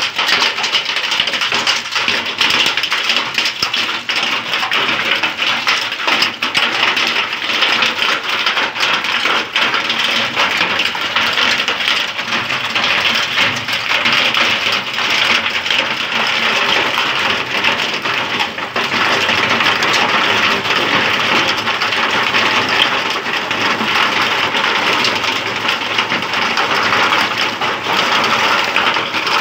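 Heavy hailstorm: hailstones and rain pelting the ground in a loud, steady, dense patter of many small impacts.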